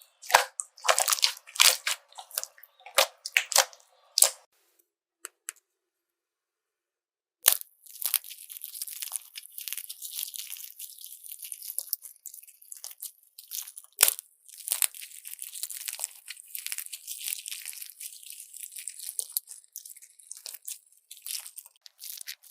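Slime being squished and stretched by hand, giving sticky crackling and popping. Loud bursts come over the first four seconds, then a pause of about three seconds, then a long run of fine crackling.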